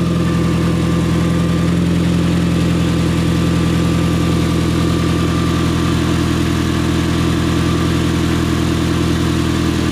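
2009 Mitsubishi Galant's engine idling steadily, heard from under the car at the exhaust, with a fast, even pulsing. The new catalytic converter no longer rings, but the exhaust leaks at its bolted joint, whose bolts are not yet tight.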